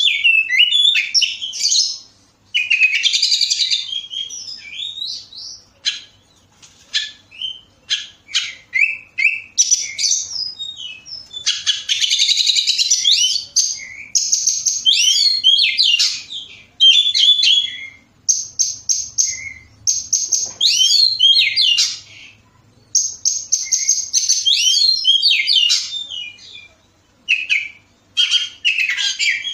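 Oriental magpie-robin singing a long, varied song: phrases of clear whistles, quick rising and falling notes and fast buzzy trills, each a second or two long, with short pauses between.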